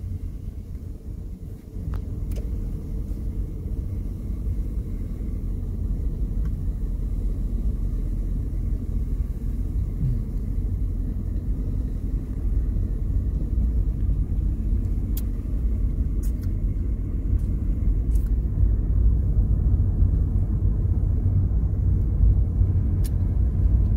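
A car driving on a paved road, heard from inside the cabin: a steady low rumble of engine and tyre noise that grows a little louder after the first couple of seconds, with a few faint ticks.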